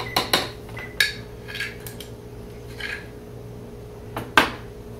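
Metal measuring spoon clinking and tapping against a glass container and a stainless steel pot while salt is measured out: several light clinks, some briefly ringing, and one sharper knock about four seconds in.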